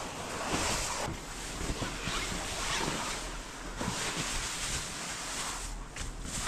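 Gusty wind buffeting the microphone, a rushing noise that swells and eases in waves with a low rumble underneath.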